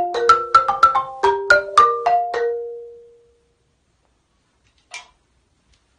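Wooden marimba struck with mallets: a quick melodic run of about ten notes, the last one left to ring out and fade away. A faint short tap about five seconds in.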